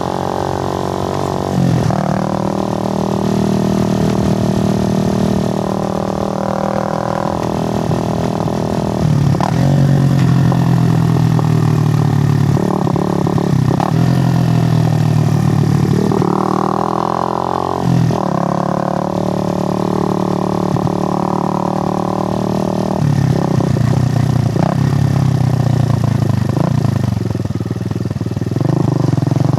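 Suzuki GN125's single-cylinder four-stroke engine running under way. The revs climb, then drop back briefly about six times, as at gear changes.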